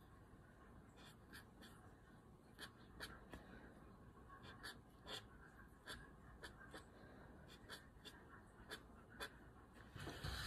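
Faint scratch and tap of a pen on paper as Japanese ideograms are written by hand, in many short separate strokes. A louder rustle near the end.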